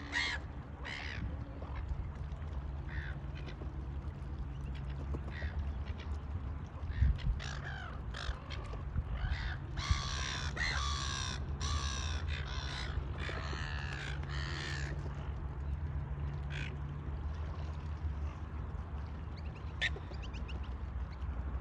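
Crows cawing: scattered single calls, with a run of repeated harsh calls about ten seconds in that lasts several seconds, over a low steady hum.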